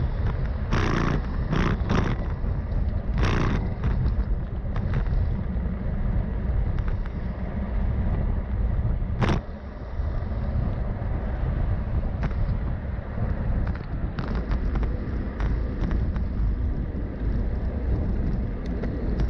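Steady low rumble of wind buffeting the microphone, mixed with road noise from riding. There are a few sharp clicks in the first few seconds, another just after nine seconds, and a brief drop in level right after it.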